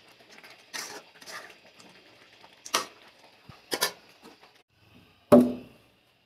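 Metal ladle scraping and stirring in a karahi of simmering chicken curry: a few short scrapes over a faint steady hiss. About five seconds in there is one louder, sharper sound with a brief ring.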